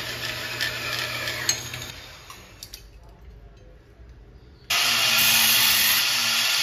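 A metal-cutting bandsaw running with a steady hum, dying away after about two seconds. About two-thirds of the way in, a belt grinder starts grinding a small piece of metal tubing, a loud steady rasp that begins suddenly.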